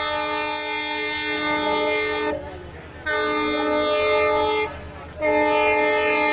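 Indian Railways locomotive horn sounding in long, steady blasts, dropping out twice for about half a second, a couple of seconds in and again about five seconds in. It is the loco pilot's continuous warning to clear a boisterous crowd.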